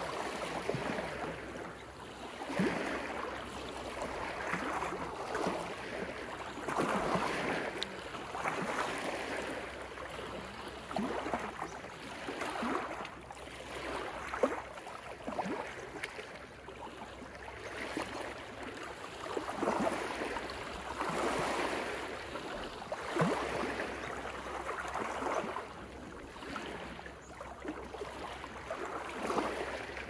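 Small ocean waves lapping and washing over a rocky, seaweed-covered shore, each wash swelling and falling every second or two, with brief sharp splashes among the stones.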